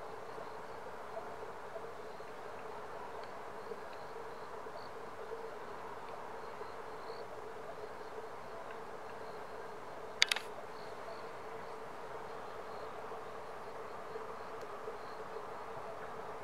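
A steady, even background hum with a faint hiss and a few faint high ticks. One sharp click about ten seconds in is the loudest sound.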